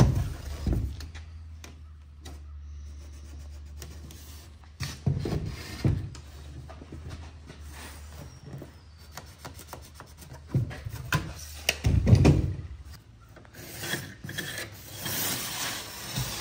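Handling noises on a rigid XPS foam insulation board: pencil and tape measure scraping and rubbing on the foam and an aluminium level laid and slid along it, with several louder knocks. A steady low hum sits underneath and stops about twelve seconds in.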